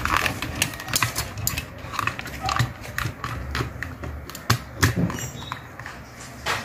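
Irregular clicks and knocks of wires, plugs and connectors being handled and plugged in on top of an amplifier, over a low steady hum.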